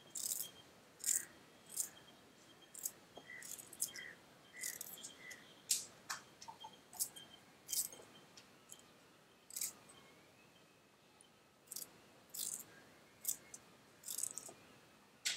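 Ginger root being scraped and cut by hand with a small metal utensil: a quiet, irregular series of short, crisp scraping strokes, roughly one every half-second to second.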